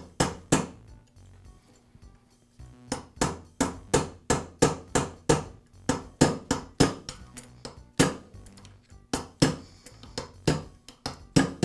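Hammer tapping a steel pin punch over and over, driving a roll pin out of a nail gun's piston to free the driver. Sharp metal taps about three a second, with a pause of about two seconds near the start.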